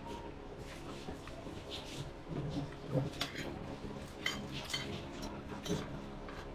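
Metal spoon and fork clinking and scraping against a china plate while eating, in scattered sharp clicks.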